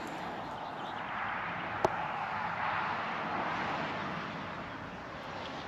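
A car driving past, its road noise swelling over the first few seconds and then fading away. A single sharp click about two seconds in.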